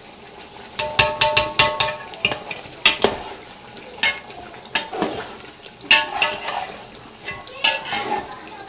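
Metal ladle stirring chicken pieces in a metal cooking pot, scraping and knocking against the pot in irregular strokes, with a brief metallic ring about a second in.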